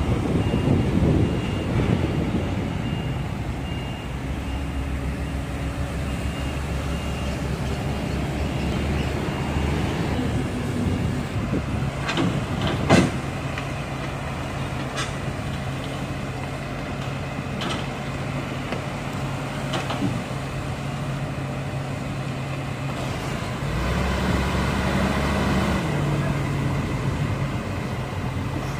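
Case CX220C crawler excavator's diesel engine running under load as the machine drives down off a lowbed trailer, with knocks and clanks from the steel tracks and undercarriage, the loudest about thirteen seconds in. A repeating alarm beep sounds during the first few seconds.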